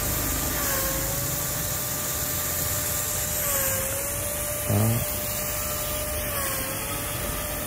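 Ducar Green 150 rain-gun sprinkler running under pump pressure: a steady mechanical drone that dips slightly in pitch every few seconds, over the hiss of the water jet. About five seconds in there is one brief loud knock with a quickly falling tone, the gun's swing arm striking into the jet.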